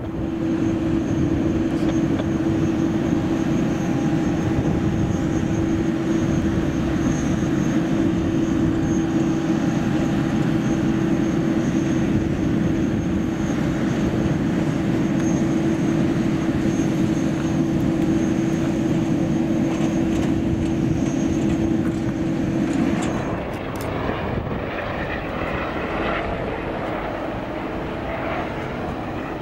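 Airbus A320neo airliner's jet engines running, a steady whine over a rushing noise, dropping off somewhat about 23 seconds in.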